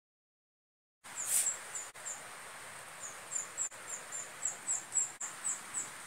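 Swiftlets chirping: short, high chirps, loosely spaced, coming thickly in the second half, over a steady hiss with a faint high whine. The sound cuts in abruptly about a second in, with a brief louder chirp just after.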